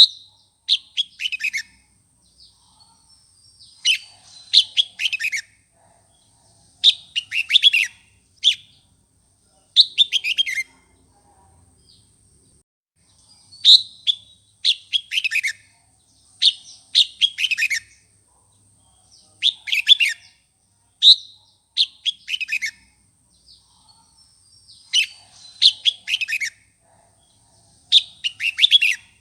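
Red-whiskered bulbul singing its fired-up, agitated song, the kind used to provoke other bulbuls. Short phrases of quick, falling chirped notes are repeated about every three seconds over a faint steady high-pitched whine.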